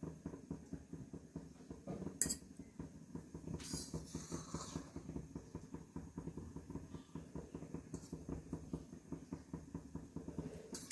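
A steel ladle clinking and scraping against a steel kadai and bowl as blanched spinach is lifted out of boiling water, with soft water splashes and a faint steady bubbling underneath. There is a sharper clink about two seconds in.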